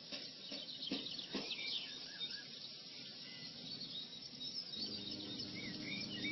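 Two light clicks about a second in as the battery clamp goes on, with small birds chirping in the background. Near the end a small power inverter's cooling fan starts up with a steady low hum, showing the inverter is powered from the battery and working.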